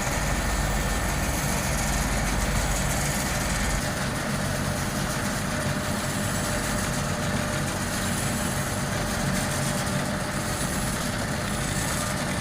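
Heavy diesel road-construction machinery running steadily, with a deep engine rumble that drops off about four seconds in.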